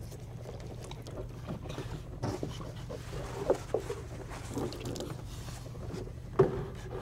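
Water dribbling and splashing quietly into a plastic bowl as toothbrushes are rinsed, with a few small knocks and a sharper knock near the end.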